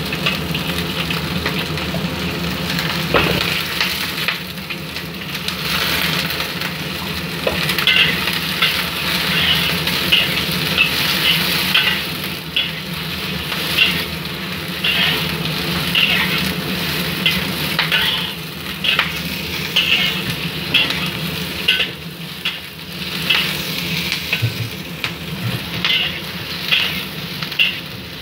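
Sliced onions sizzling in hot oil in a wok while a spatula stirs and tosses them, scraping the pan about once a second through most of the stretch.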